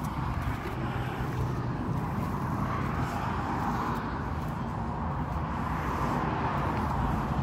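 Orion RD244 Lux compact tractor's KM385 three-cylinder diesel engine running steadily.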